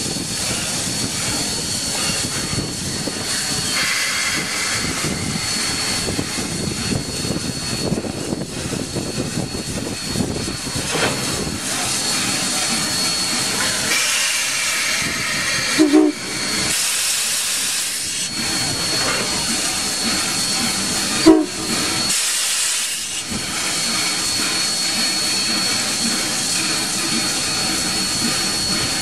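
Standing steam locomotive hissing steadily, with a thin high whistling tone running through the hiss. Two brief louder sounds break in, one about halfway through and one a few seconds later.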